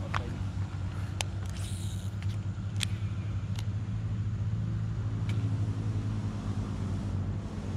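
A steady low rumble with a hum, like a running motor, with a few sharp clicks scattered through it and a short hiss about one and a half seconds in.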